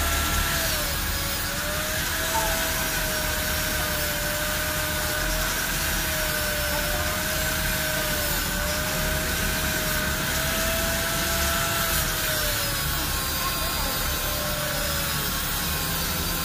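Handheld electric power tool running steadily and driving a small wheel on a long shaft: a continuous motor whine that wavers slightly in pitch, over a steady rushing noise.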